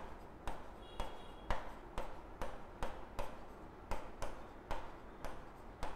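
Marker pen writing on a whiteboard: a string of short, faint taps and ticks, about two to three a second, as the letters are stroked out, with a brief high squeak about a second in.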